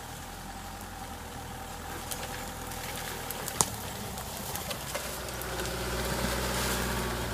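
Off-road 4x4's engine running at low speed as it approaches, getting louder near the end, with scattered sharp clicks and one louder crack about halfway through.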